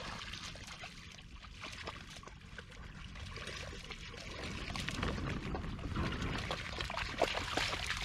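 Lake water splashing and trickling as dogs and a person wade through the shallows, a little louder from about five seconds in.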